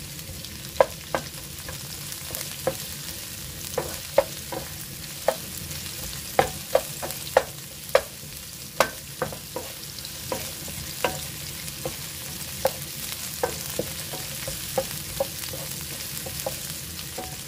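Onions and garlic stir-frying in oil in a frying pan over high heat: a steady sizzle, broken by irregular sharp clacks as they are stirred in the pan.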